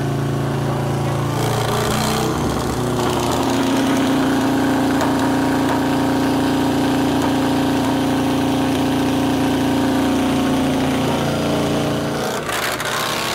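Orange County Chopper's V-twin engine running on a chassis dyno: engine speed rises about two seconds in, holds steady at higher revs, then drops back near the end.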